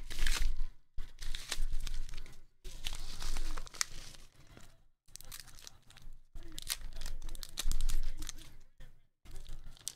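Manila paper envelope torn open and crinkled by hand, in several rustling, tearing bursts with short pauses between them, as a plastic-cased graded card is slid out.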